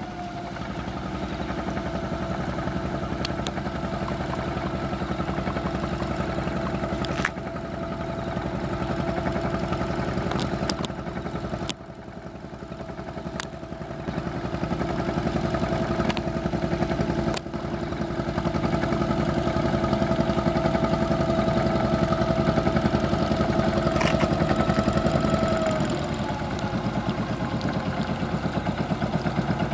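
Small boat's engine running steadily at low speed, its note easing down in pitch about 26 seconds in, with a few knocks against the hull along the way.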